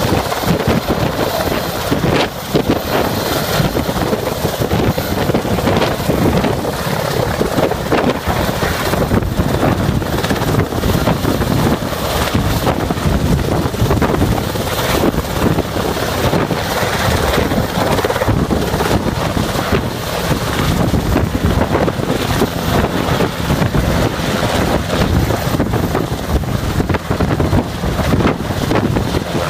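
Coastguard helicopter hovering low and close, its rotors and engines making a loud, steady noise, with the rotor downwash buffeting the microphone as wind rumble.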